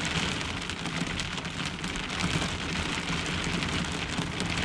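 Heavy rain falling on a pickup truck's camper shell, heard from inside as a dense, steady patter.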